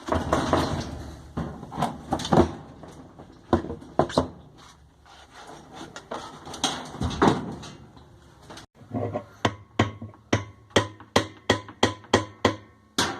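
Tools knocking and clanking on metal parts of a washing machine during work on its transmission, then a run of about a dozen sharp, evenly spaced taps, roughly three a second, in the last few seconds.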